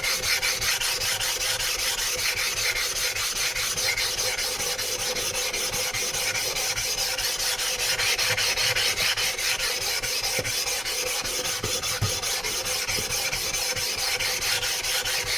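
A 200-grit flattening stone scraping back and forth over a wet 320-grit water stone, a steady gritty rasping as the whetstone's surface is ground flat.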